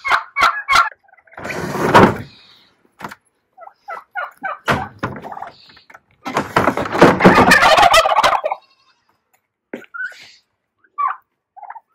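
Domestic turkeys gobbling in loud rattling calls, the longest about six to eight and a half seconds in, with short clicks and knocks near the start.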